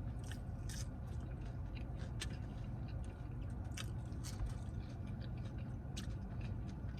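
Close-miked chewing of a fast-food cheeseburger, with scattered sharp mouth clicks and crunches, over a steady low hum.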